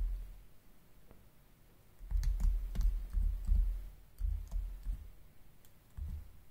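Keys tapped on a laptop keyboard as a short entry is typed: a quick run of clicks with dull thumps under them, from about two to five seconds in and once more near the end. A single dull thump comes right at the start.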